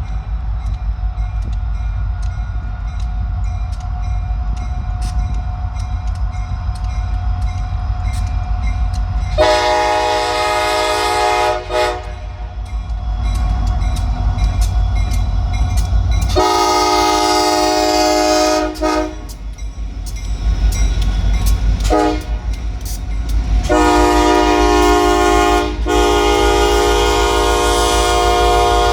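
EMD SD60 diesel locomotive's multi-note horn blowing the grade-crossing signal: a long blast about nine seconds in, a second long blast, a short toot, then a final long blast. Under it runs the steady low rumble of the train with regular clicking of wheels on the rails.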